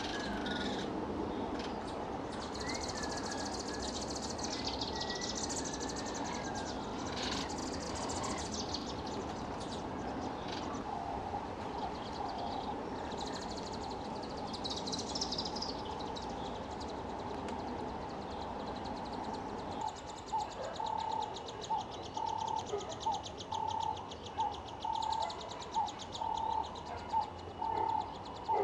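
Scattered high bird calls over steady outdoor background noise; in the last third, a regular series of short, mid-pitched notes comes in, about one and a half a second.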